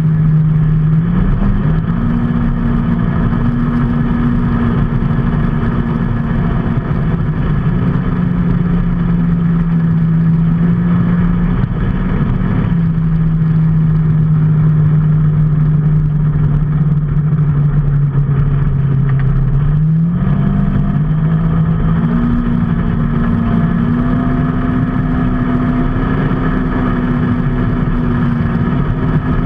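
Motor vehicle engine running under way, its pitch holding steady for several seconds at a time and then shifting up or down, over constant road and wind noise.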